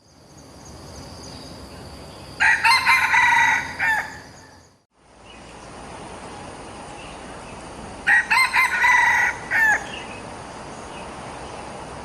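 Rooster crowing twice, each crow a loud call of about a second and a half, over a steady background hiss.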